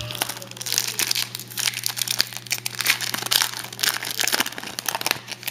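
Foil wrapper of a trading-card pack crinkling and tearing as it is pulled open by hand, a dense crackle that stops near the end.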